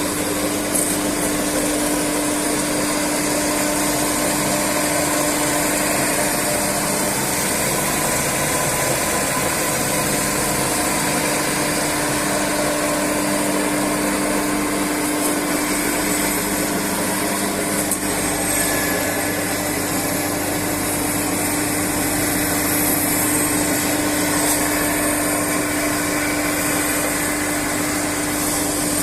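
Electric drum sander running steadily at its lowest speed setting, a constant motor hum with one steady tone.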